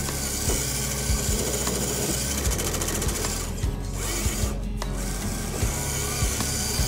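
Electric motors and geared drivetrains of two RC rock crawlers, a Traxxas TRX4 Bronco and an Axial SCX10 III Jeep Wrangler, whining as they crawl up a dirt bank. Background music with a steady beat plays underneath.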